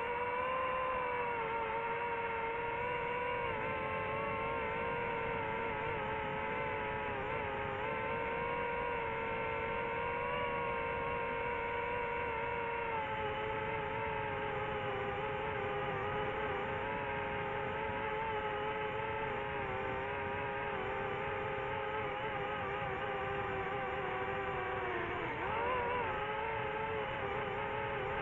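Quadcopter drone's propellers and motors whining steadily, the pitch wavering slightly with small speed changes and briefly dipping and rising again near the end.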